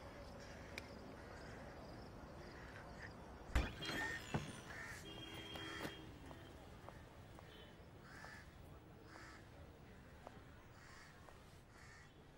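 Faint background ambience: a steady thin insect chirring, a sharp knock about three and a half seconds in, then crows cawing again and again, roughly once a second.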